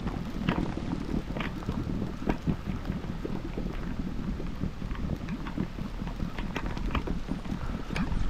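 Wind buffeting the microphone in a low, uneven rumble, with scattered light clicks and knocks.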